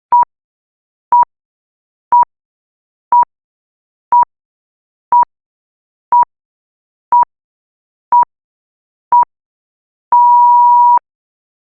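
Electronic beep tone of one steady pitch: ten short pips one second apart, then a single longer beep about a second long, the pattern of a countdown timer ending.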